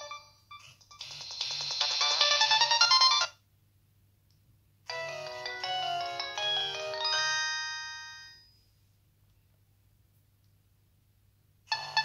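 Nokia 3220 mobile phone playing its built-in ringtones one after another through its loudspeaker. A fast tune of quick notes starts about a second in and cuts off after about two seconds. After a pause, a slower tune of ringing notes that fade out plays for about four seconds. The next ringtone starts right at the end.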